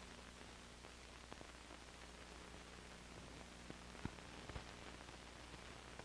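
Faint hiss and low steady hum of an old film soundtrack with no music or voice on it, broken by a few soft crackles and two sharper pops about four seconds in.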